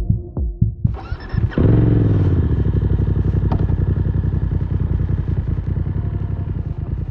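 A beat of electronic music, then about a second in the BMW F 900 R's parallel-twin engine comes in with its revs falling back to a steady, pulsing idle that slowly fades.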